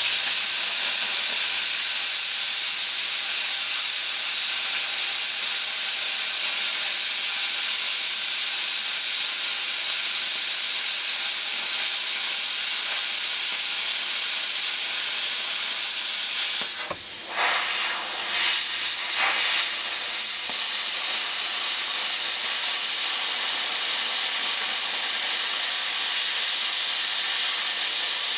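Cutting torch hissing steadily as it cuts through a steel shovel blade. It breaks off briefly about two-thirds of the way through, then resumes with a brighter hiss. The tip is worn and cuts a fat, shaky kerf.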